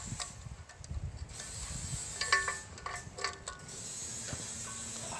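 Ethernet cable connector being handled and pulled through a camera stand: light rubbing and scraping with a few sharp clicks, clustered a little past two seconds in and again around three seconds.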